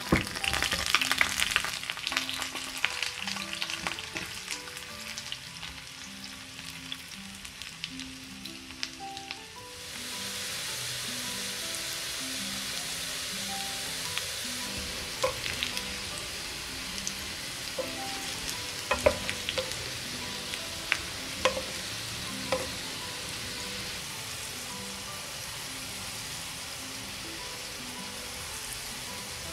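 Cubed potatoes frying in hot vegetable oil in a frying pan: irregular crackling for the first ten seconds or so, then a steady sizzle with a few sharp pops or taps.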